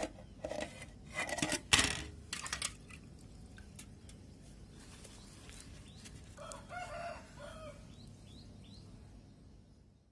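A rooster crowing once, about six and a half seconds in, after a few sharp knocks and clatters in the first three seconds.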